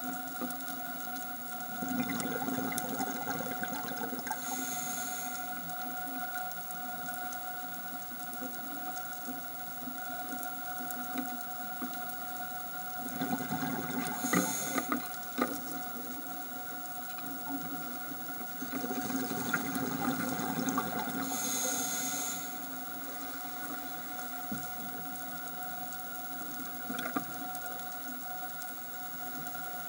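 Scuba diver's breathing underwater through a regulator: exhaled air bubbles out in three rushes of a few seconds each, with short hisses in between. A steady two-note whine runs underneath.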